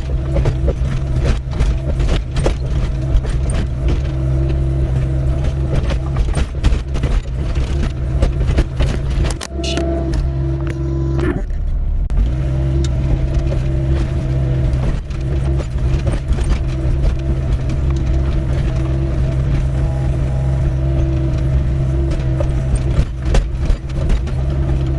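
Doosan 55W wheeled excavator running steadily under load while digging, with frequent sharp clanks and scrapes of the bucket in stony ground. The engine note briefly dips and changes about ten seconds in.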